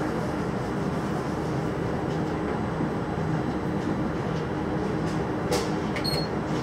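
Berlin U-Bahn GI/1E train standing at a station with its onboard equipment running in a steady hum. A brief click about five and a half seconds in and a short high beep just after six seconds.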